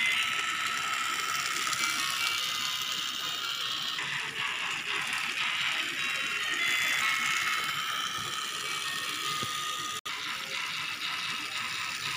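Battery-powered Talk 'N Action Thomas toy engine running along its track: the steady whir of its small motor and plastic gears, driving on a freshly fitted replacement drive wheel and gear. The sound cuts out for an instant about ten seconds in.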